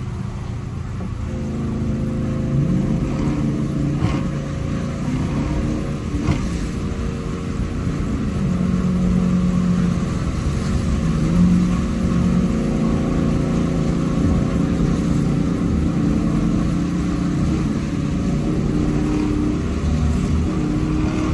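Wind rushing in through an open window of a Dodge Challenger R/T at highway speed, with tyres hissing on the wet road and the car's 5.7-litre HEMI V8 droning steadily underneath.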